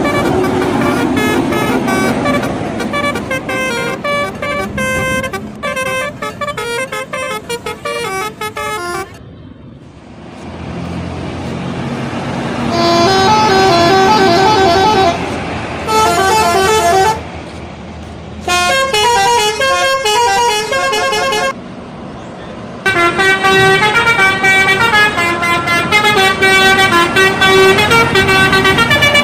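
Bus telolet horns: multi-trumpet air horns playing quick, stepping melodic tunes. They sound in several runs broken by short pauses.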